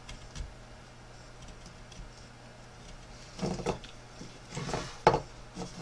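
Small hand gouge cutting fine grooves into a wooden carving: after a quiet start, a few short scraping cuts come in the second half, with a sharp click a little after five seconds as the tool snaps through the wood. A faint steady hum runs underneath.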